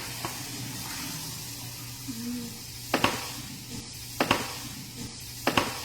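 Kitchen utensil sounds: three sharp clinks, like a spoon against a bowl or dishes, about a second and a quarter apart in the second half, over a steady hiss and low hum.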